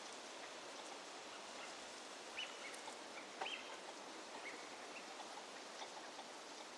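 A few short, faint bird calls, the two clearest about two and a half and three and a half seconds in, over a steady background hiss.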